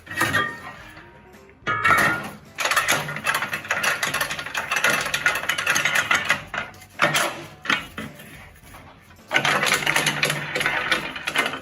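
Metal rib rack clattering and scraping against the Smokaroma pressure smoker's metal pot as it is lowered in, in two long rattling stretches.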